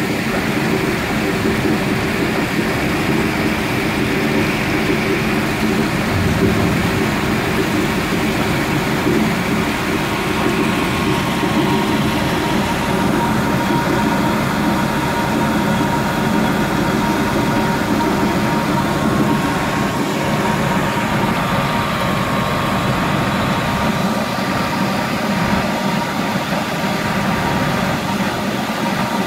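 Engine and pump of a 6-inch cutter suction mud dredger running steadily, with a constant rush of mud slurry.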